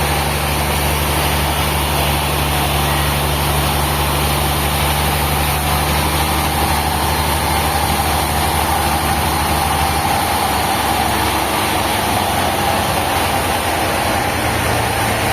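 A heavy engine running steadily, its low pitch shifting about ten seconds in, over a constant mechanical noise.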